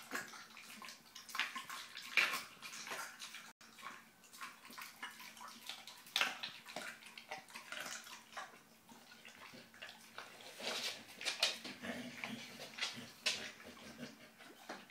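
A bullmastiff x English bull terrier puppy chewing raw fish: irregular wet smacks and clicks of its jaws, with licking as it noses the scraps on the floor near the end.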